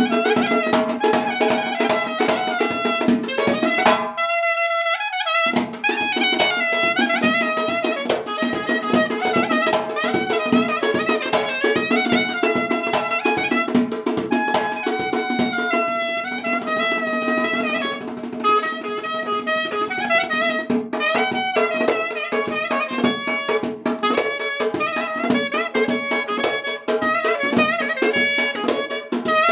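Live Dagestani folk-band music: a fast, heavily ornamented wind melody over a sustained drone and a quick drum beat. The drone and drums cut out briefly about four seconds in, then return.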